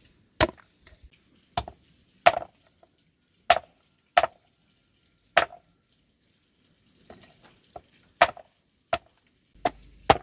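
Repeated sharp strikes of a hand tool, about a dozen in all, coming at an uneven pace with a short pause midway and lighter, quicker blows near the end.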